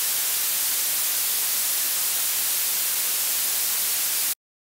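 Blue noise: steady random noise with its power rising toward the high frequencies at 3 decibels per octave, so the treble dominates. It cuts off suddenly near the end.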